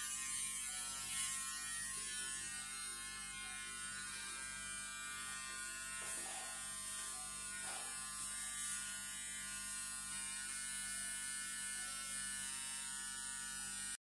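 Electric beard trimmer running on its own with a steady buzz, held away from the face and not cutting hair.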